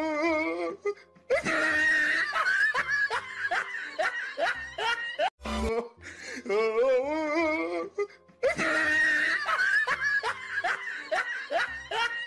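A looped comic sound clip of warbling laughter over music, the same few seconds repeating twice.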